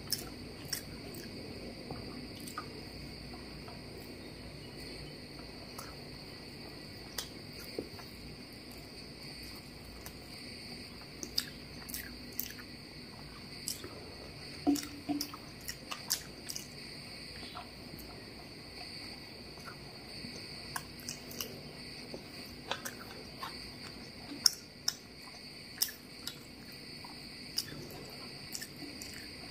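Fingers mixing and squeezing biryani rice on a plate, making scattered small clicks and sticky sounds, with some chewing and mouth sounds. Under it runs a steady high-pitched background hum.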